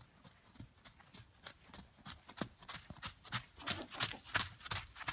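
Hoofbeats of a Nez Perce horse moving at speed on a dirt arena: a run of quick strikes, loudest about four seconds in as the horse passes close by.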